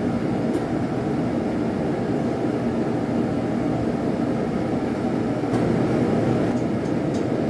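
Blacksmith's forge running with a steady, even rushing noise from its fire while a railroad spike heats inside it.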